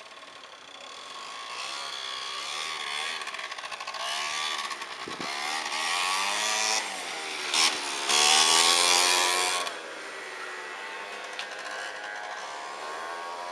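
Small motorcycle engine revving as it moves about close by, its pitch rising and falling several times. It is loudest for a couple of seconds about eight seconds in, then drops away suddenly.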